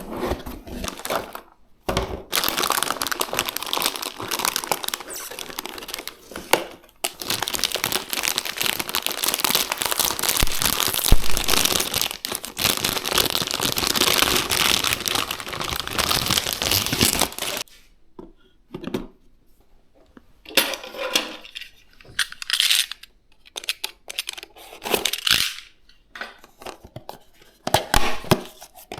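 Component packaging being opened and unwrapped by hand: a long stretch of continuous rustling and tearing noise, then shorter rustles and knocks separated by brief pauses.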